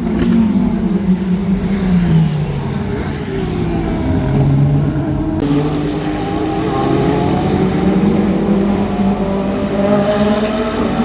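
Endurance race car engines at racing speed, their pitch falling and rising in turn through gear changes, with more than one car heard.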